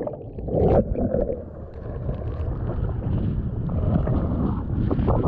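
Water splashing and churning around a whitewater kayak as it is rolled over and brought back upright, with wind rumbling on the microphone.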